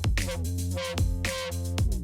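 Electronic background music with a steady beat, drum-machine hits and a deep bass line.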